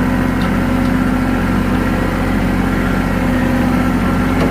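Farm tractor engine running steadily at an even speed while towing a dead skid steer backwards by chain.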